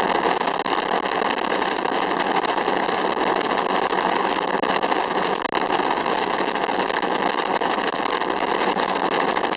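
Autogyro in flight: a steady engine drone mixed with the rush of airflow, unchanging throughout.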